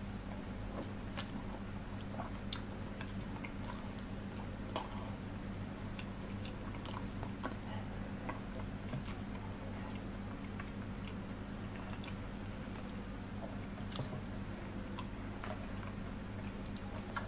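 Close-miked chewing and wet mouth smacks of someone eating chicken feet curry with rice by hand, with scattered short clicks through it and a steady low hum beneath. Near the end the fingers squish and mix the rice on the plate.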